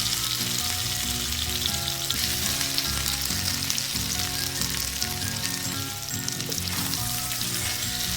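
Breaded eel pieces deep-frying in hot oil in a miniature pan, with a steady sizzle throughout.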